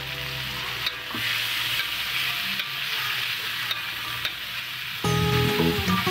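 Long beans, onion and chicken gizzards sizzling in a wok, stirred and scraped with a metal spatula, with a few sharp clicks. Music comes in loudly about five seconds in.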